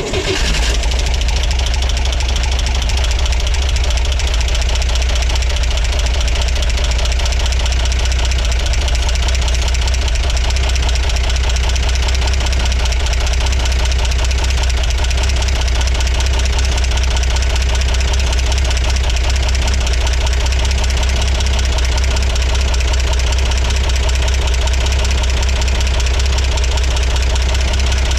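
A 1963 Corvair's air-cooled flat-six engine running at idle with its valve covers off, with a repeating rotational knock. The owner first suspected loose rocker arms for the knock, but adjusting them makes no difference, and he comes to doubt that the valves are the cause.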